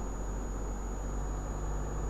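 A car driving, its engine and tyres making a steady low rumble, with a thin, steady high-pitched whine above it.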